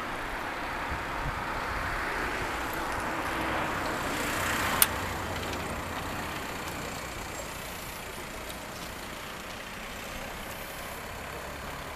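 Street traffic: a road vehicle passing, its noise swelling to a peak about five seconds in and then slowly fading. A single sharp click sounds at the peak.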